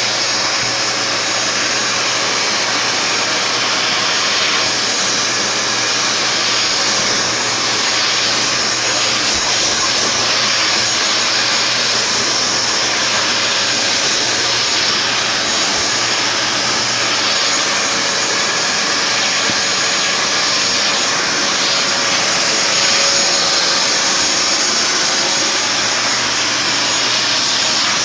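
Simplicity Sport bagged hand vacuum running steadily: a loud rush of air over a steady motor tone.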